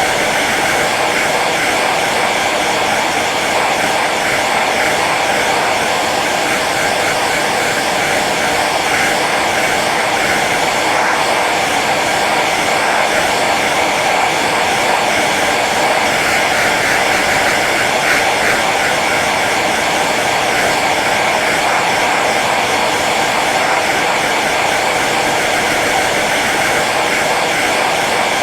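Hair dryer running steadily on its low setting: a constant blowing whir of fan and airflow with a faint steady hum, unchanging in level.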